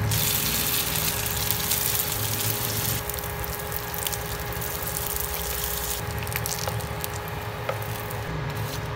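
Spring rolls sizzling as they shallow-fry in hot oil in a pan, loudest for the first three seconds as a roll goes in. A few light clicks of metal forks and tongs against the pan come later.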